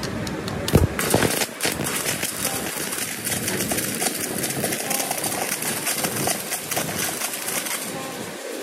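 Stick (arc) welding on a truck drive shaft's splined shaft: the electrode's arc crackles and sizzles steadily, with a couple of loud sharp cracks about a second in.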